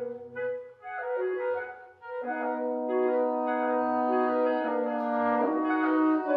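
Wind quartet playing classical chamber music: short clarinet phrases broken by two brief pauses, then, from about two seconds in, several instruments holding sustained chords.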